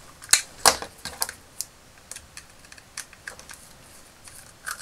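Sharp clicks and taps of a small screwdriver and hard plastic toy parts being handled while the screws are undone: two loud clicks in the first second, then scattered lighter ones.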